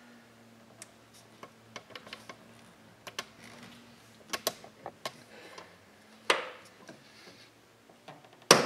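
An 11 mm open-end wrench clicking and clinking against the clutch hydraulic line fitting at the clutch master cylinder as it is worked loose, in scattered irregular ticks, with one louder sharp knock near the end.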